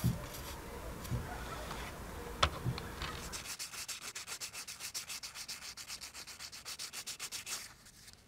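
Sandpaper rubbed over the face of a metal spoon lure in rapid, even back-and-forth strokes, starting about three seconds in and stopping abruptly just before the end. Before the sanding there are a few light clicks and taps.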